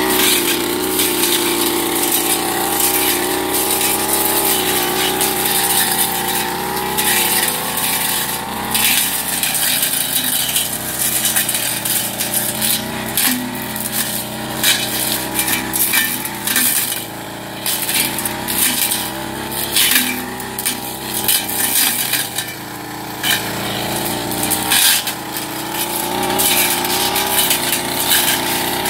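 Backpack two-stroke brush cutter running under load while cutting undergrowth. A rapid, irregular stream of sharp clicks and clinks comes from the spinning cutting head striking stems and debris. The engine drops back for a long stretch in the middle and picks up again near the end.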